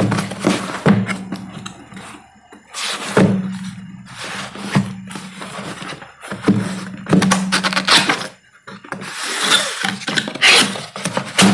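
Long cardboard deskmat box being handled on a desk: repeated hollow thunks as it is set down and knocked about, with cardboard scraping and rustling as its end flaps are worked open near the end.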